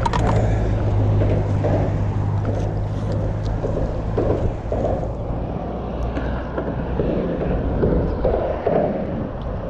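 Wind buffeting the microphone over a steady low engine hum that fades out about four seconds in.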